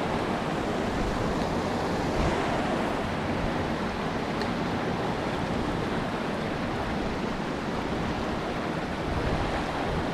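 Rushing brook water: a steady, even wash of flowing water.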